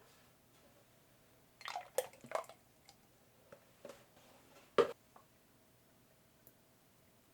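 Soft, wet squelches of fresh whipped cream being worked: a short cluster about a second and a half in, a few small ticks, and one sharper squelch near five seconds.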